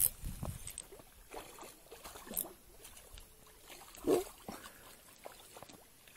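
Short water splashes at the river's edge as a hooked fish thrashes at the surface, the loudest about four seconds in, with a sharp knock right at the start and faint handling clicks between.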